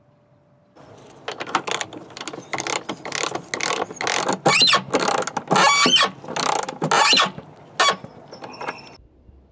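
A ratchet with a 9/16-inch socket tightening the clamp-ring bolt of a Jandy CL580 pool cartridge filter, clicking in a quick series of short strokes. Some strokes carry a squeak. It starts about a second in and stops shortly before the end.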